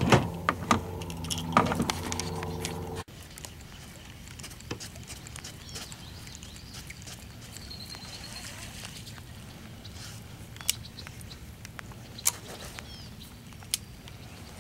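A fishing reel being cranked, a steady geared whir with clicks, which cuts off about three seconds in. Then light rain patters on the water, with a few sharp taps.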